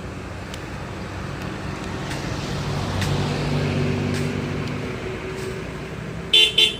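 Motor vehicle engine running, its drone growing louder in the middle and then easing off. Near the end a vehicle horn gives three short toots.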